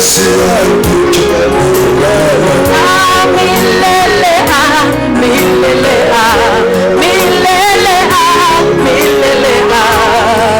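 Worship music: singing voices with a wavering vibrato over a steady instrumental backing.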